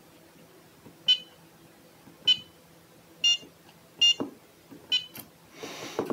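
ISDT C4 EVO battery charger beeping at button presses: five short, high beeps about a second apart. Near the end comes a brief scraping rustle as a cylindrical battery cell is pulled from its charging slot.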